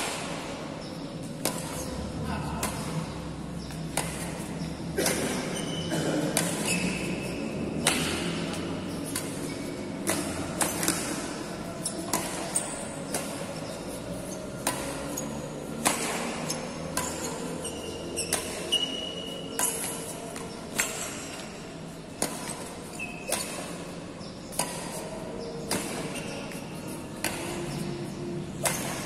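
Badminton rackets hitting shuttlecocks in a steady rally-drill rhythm, a sharp crack about once a second, echoing in a large hall.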